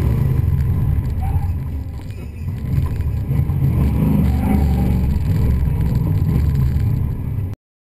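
Hot-rodded 1956 Chevy's engine running hard on an autocross course, backing off about two seconds in and then building back up under throttle. The sound cuts off abruptly near the end.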